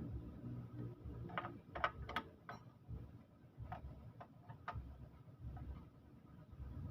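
A dozen or so irregular clicks and taps over a low steady hum.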